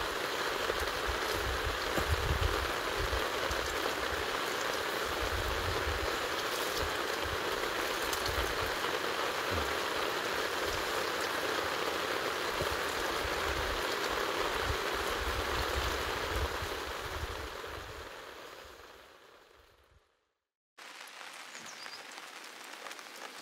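Steady rushing water noise, with irregular low rumbles like wind buffeting the microphone. It fades out near the end, then after a short silence a quieter ambience begins.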